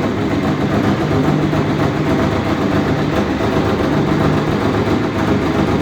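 Honda Transalp XL650V's V-twin engine idling steadily, played back sped up to 1.5 times speed.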